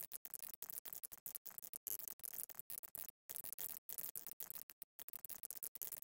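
Fast typing on an Epomaker TH80 PRO mechanical keyboard: a dense stream of key clacks with brief pauses, the longest about three seconds in.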